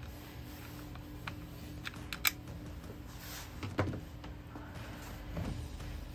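Hand tools clicking and knocking on the metal housing of a Bosch 24 V starter motor held in a vise: a few sharp metallic clicks about two seconds in, then duller knocks near the middle, over a faint steady hum.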